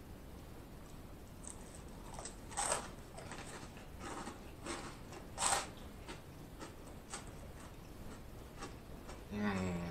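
Close-miked mouth sounds of a man eating shrimp Alfredo pasta: scattered wet clicks and smacks as he chews, two of them louder. Near the end comes a short low hum from his throat.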